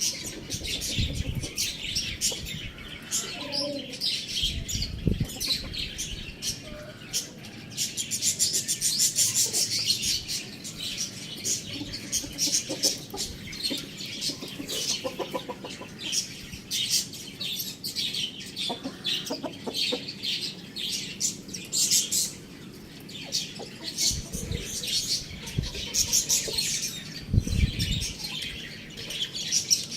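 Several small birds chirping and chattering continuously in a dense, high-pitched mix, with a few short low thumps.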